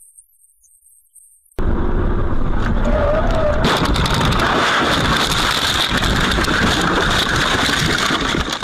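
After near silence, a car crash starts abruptly about one and a half seconds in: loud, continuous rumbling and scraping with many knocks and crackles that runs for several seconds, as the car leaves the road and is thrown about.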